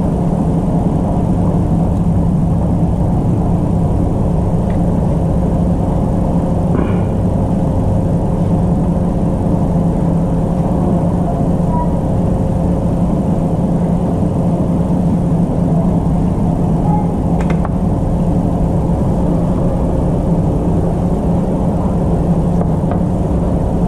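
An electric motor-driven machine running steadily with a constant low hum and a faint steady tone above it.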